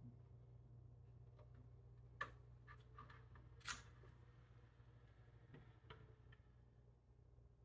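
Faint clicks and taps from handling the parts of a small desktop computer, two sharper clicks about two and three and a half seconds in, over a low steady hum.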